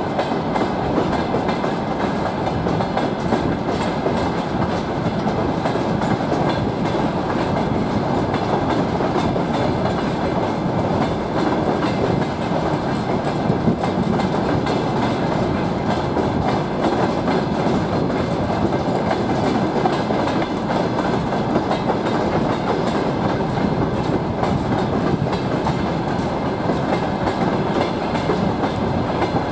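Freight train wagons rolling past in a steady, unbroken rumble of wheels on rails, with frequent clacks from the wheels over the track.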